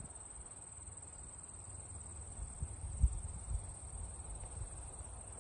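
Steady high-pitched trilling of insects, with low, irregular thuds of footsteps on the walk; the loudest thud comes about three seconds in.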